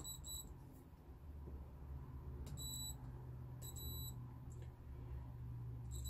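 Digital multimeter's continuity buzzer giving short high beeps, a quick pair at the start, then single beeps about two and a half and four seconds in, with another just beginning at the end, over a low steady hum. Each beep signals continuity between the probes on the dash circuit board's printed tracks: the connection is good.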